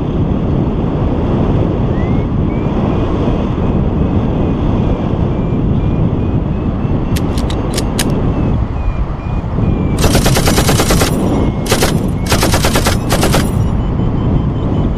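Wind buffeting the microphone of a paraglider in flight, with a paragliding variometer beeping faintly in the background, its pitch shifting up and down. A few sharp clicks come about halfway through, then two bursts of fast rattling clicks, each about a second long, near the end.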